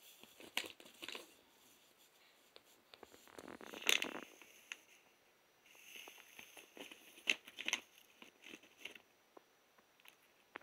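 Plastic bag of fried pork skins crinkling in irregular bursts as a cat pushes its head inside and rummages for a pork rind, loudest about four seconds in and again near the end.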